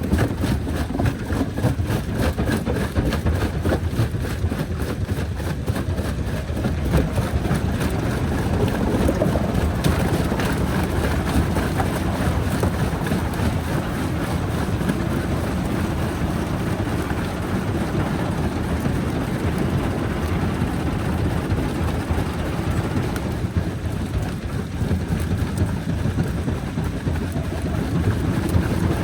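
Jaw-type rock crusher running under load, a steady heavy rumble with constant knocking and cracking as stone is broken.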